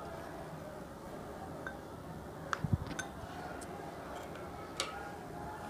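Metal spoon clinking a few times against crockery as ground green pea paste is spooned off a plate into a bowl of grated potato.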